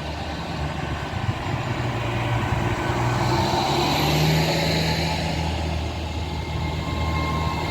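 East Midlands Railway Class 810 Aurora bi-mode train pulling away, its diesel engines running under load. The engines grow louder to a peak about four seconds in, then ease slightly.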